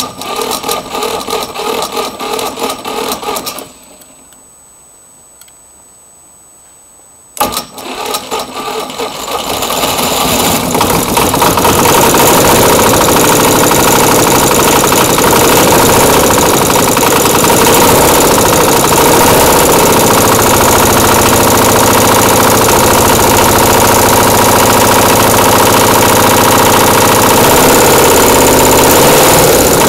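Cold diesel twin motorcycle engine cranked by an electric starter that the owner suspects is weak, with a pulsing beat for about three and a half seconds, then a pause. About seven seconds in it cranks again, catches, and builds up over a few seconds into steady running.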